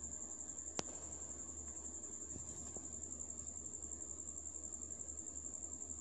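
Quiet background: a steady, thin high-pitched whine with a low hum beneath it, and a single faint click just under a second in.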